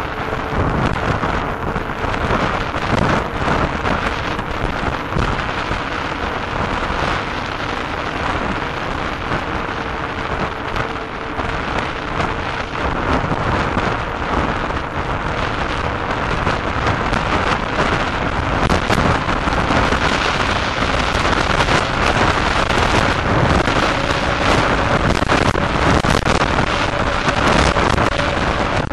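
Wind buffeting the microphone of a bike-mounted action camera while riding at speed on a paved road: a loud, steady rushing roar with constant crackle.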